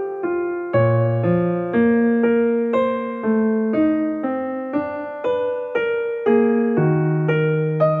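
Background music: a gentle piano melody played one note at a time, each note ringing and fading before the next.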